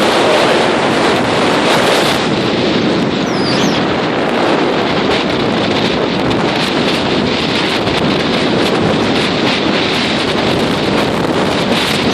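Gale-force wind buffeting the microphone over the wash of rough lake waves breaking against a pier, a loud steady rush with no letup.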